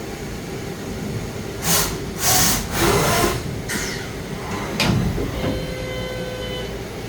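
DMG MORI NHX5500 horizontal machining center running over a steady hum: three or four short bursts of air hiss, a sharp clack just before the middle, then a steady high whine for about a second and a half.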